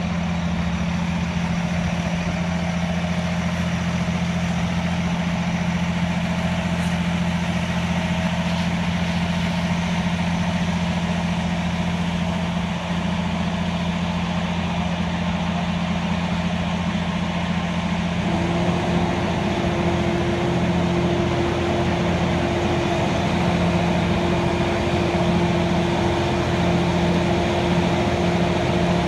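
Fire engine running steadily with a constant low hum; about two-thirds of the way through, a higher steady tone joins in and the lower tone begins to waver.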